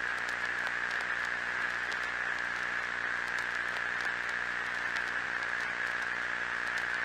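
Steady static hiss with faint scattered crackles and a low buzzing hum underneath, from a broadcast that has gone dead after the alert voice stops.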